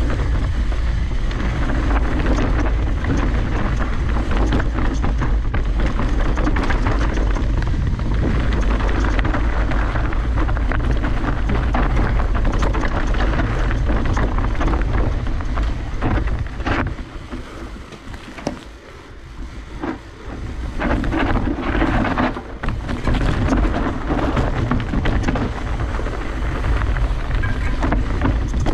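Mountain bike ridden along a dirt and rock trail: wind buffeting the action camera's microphone, tyres rolling and the bike rattling and knocking over bumps. The wind noise drops away for a few seconds about two-thirds of the way through, then picks up again.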